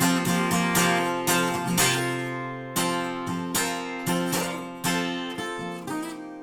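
Acoustic guitar music with strummed chords; the last chord rings and dies away near the end.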